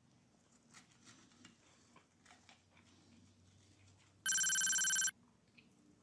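A single electronic beep: one steady tone lasting under a second, starting and stopping abruptly about four seconds in. Faint clicks and rustles come before it.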